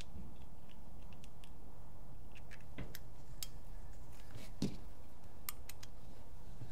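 Scattered light clicks and taps of small metal paintball-pistol regulator parts being handled and fitted back together, a few sharper ones about three to five seconds in, over a steady low background hum.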